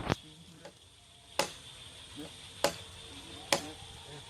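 Four sharp knocks, roughly a second apart.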